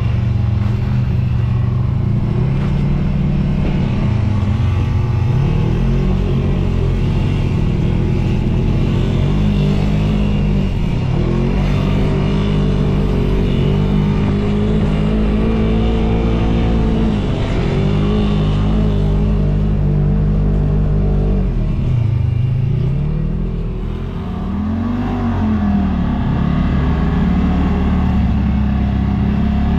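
Side-by-side UTV engine running while driving a dirt trail. Its pitch keeps dropping and climbing again as the throttle is eased and reopened, with a deeper drop and climb a little after twenty seconds in.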